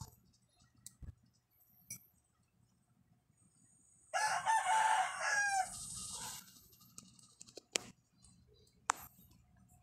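An animal call lasting about two seconds, starting about four seconds in, followed by two sharp clicks near the end.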